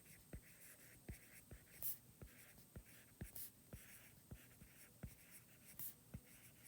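Quiet handwriting: soft strokes of a writing tool, with a few brief sharper scratches. A faint, even tick runs underneath at about two and a half ticks a second.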